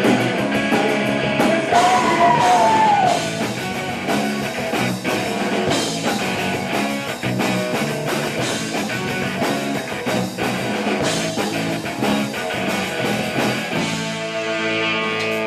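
Rock band playing live: electric guitar, electric bass and a drum kit.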